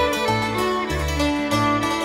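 String band music: a fiddle playing a tune over plucked strings and a bass line that steps to a new note about twice a second.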